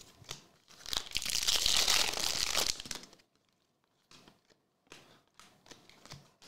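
A Topps Chrome trading-card pack's wrapper being torn open and crinkled, starting about a second in and lasting about two seconds. Faint rustles and clicks of the cards being handled follow.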